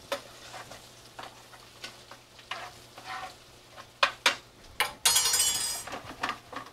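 A metal spoon stirring and scraping diced butternut squash, garlic and lemon zest in sizzling butter and olive oil in a stainless steel skillet. A few sharp knocks of the spoon against the pan come about four seconds in, then a louder sizzle lasting about a second.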